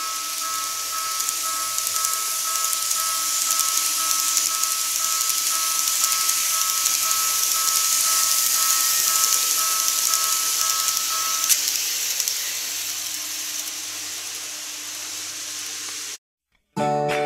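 KATO N-gauge E257-series model train running past on the track: a steady hissing whir from its wheels and motor that swells as it draws near and eases off as it goes. It cuts out suddenly near the end, and music starts.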